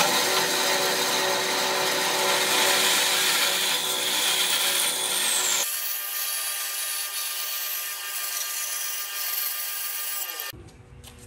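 Band saw running and cutting through a softwood board: the blade's rasping noise in the wood over a steady motor hum. It drops away abruptly near the end.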